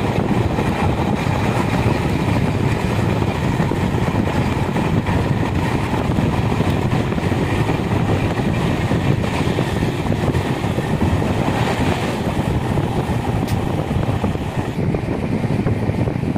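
Passenger train running at speed, heard from inside a moving coach: a steady, loud rumble of wheels on the rails.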